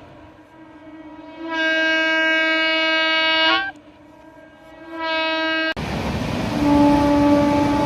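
Indian electric locomotive horns sounding a series of blasts. A faint horn is followed by a long loud blast of about two seconds and then a shorter blast. Near the end, a steadier noise rises suddenly and a lower-pitched horn comes in and holds steady.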